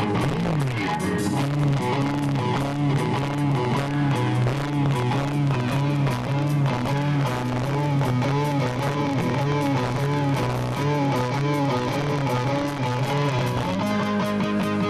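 Live rock band playing: an electric guitar riff repeating over bass and drums, switching to longer held notes near the end.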